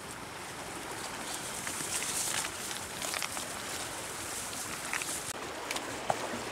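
Leaves and branches of dense shrubs rustling as people push through the thicket, with scattered small snaps and cracks; the rustling grows louder over the first couple of seconds.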